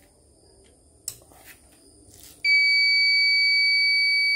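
CNY embroidery machine switching on: a click about a second in, then a long, steady high-pitched beep from its buzzer starting about halfway through. The beep is the power-on signal of a machine that now responds after its mainboard was replaced.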